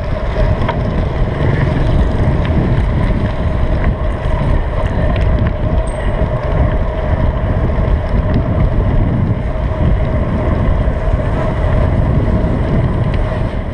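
Wind rushing over the microphone of a camera mounted on a moving bicycle, a steady low buffeting with a constant hum underneath.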